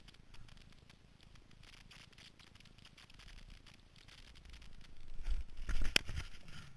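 Snowboard sliding over hard, tracked snow, a faint scraping hiss heard through a GoPro helmet camera. About five seconds in come several heavy thumps and one sharp knock, the loudest moment.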